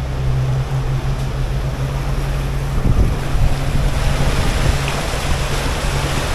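A boat's engine running with a steady low drone while under way, with water rushing past the hull and wind gusting on the microphone, the gusts strongest about three seconds in.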